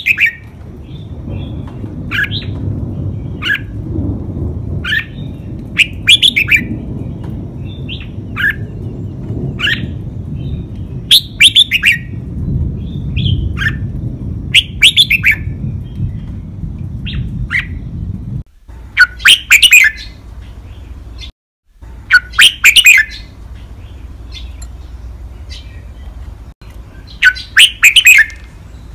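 Caged red-whiskered bulbul singing its five-syllable "lak wai" song, clear, whistled phrases repeated every second or two. The louder, fuller phrases come in the last third.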